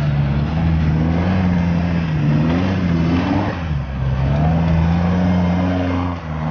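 Toyota Hilux Surf engine revving hard under load as the 4x4 climbs a steep, loose hillside, its revs rising and falling with a brief dip about four seconds in, while the tyres spin and throw up dirt.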